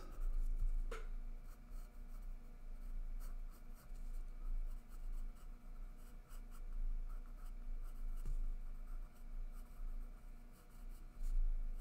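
Pencil scratching on sketchpad paper in short, faint strokes while sketching, over a low steady hum.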